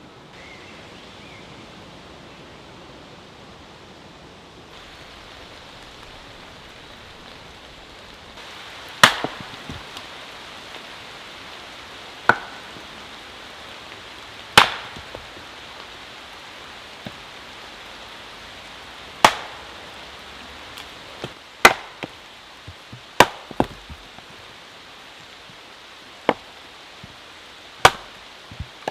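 Sharp strikes of a tool on wood, one every few seconds and starting about nine seconds in, typical of chopping or knocking timber for the camp build. A steady hiss runs underneath.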